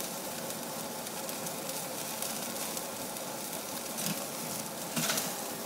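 Picanha fat cap sizzling steadily over direct flame on a Kamado Joe charcoal grill as the fat renders down and crisps, with a faint click or two from the tongs about four and five seconds in.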